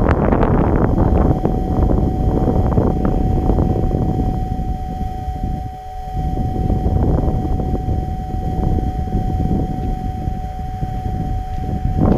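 Wind buffeting the microphone in a loud, gusty rumble that eases briefly about six seconds in. A thin steady high tone sounds underneath from about a second and a half in until just before the end.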